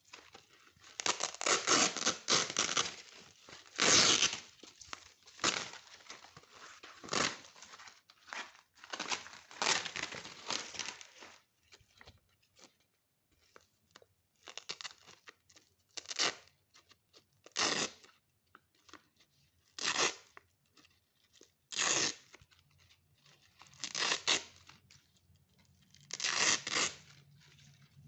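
Velcro hook-and-loop strips being ripped apart again and again: a close run of rips for the first ten seconds or so, then single rips about every two seconds.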